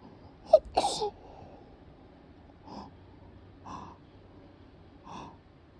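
A person sneezing once, sharp and loud, about half a second in. Three short, quieter gasping breaths follow, spaced a second or so apart.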